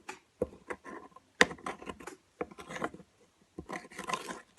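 Freshly activated Elmer's glue slime being worked and squished by hand, giving irregular sticky clicks, snaps and squelches.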